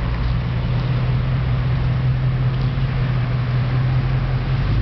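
Hummer H2's V8 engine running with a steady low, even note while the SUV drives slowly.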